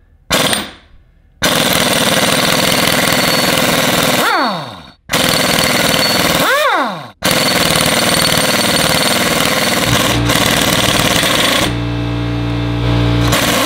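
Pneumatic impact wrench hammering on a stuck 24 mm engine-mount nut, which an electric impact would not shift. It gives a short burst, then long runs of rapid rattling hammering, with two brief pauses where the tool winds down in pitch. Near the end the hammering gives way to a steadier low hum.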